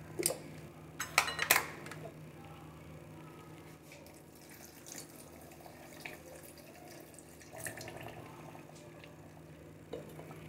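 Milk pouring from a bottle into a blender jar over chopped mango, a quiet steady trickle lasting several seconds. A few sharp clicks come in the first second and a half as the bottle's cap is opened.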